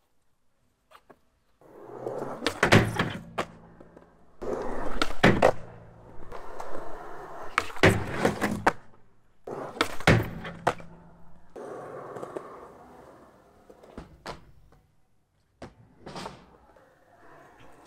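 Skateboard wheels rolling on concrete, with sharp clacks of the board popping and landing, mostly in pairs every two to three seconds, as it is ridden on and off a homemade skate box. The rolling starts about two seconds in, and the clacks thin out near the end.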